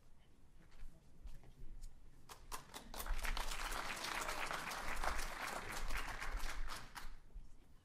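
Audience applauding: a few scattered claps at first, swelling into full applause about three seconds in, then dying away near the end.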